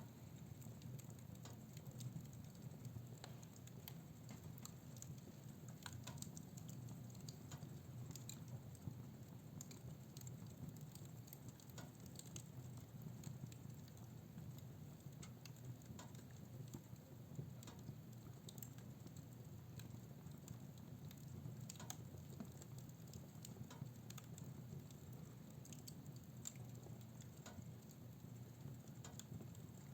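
Fire burning in a fireplace, faint: a low steady rumble with scattered small crackles and pops about every second or two.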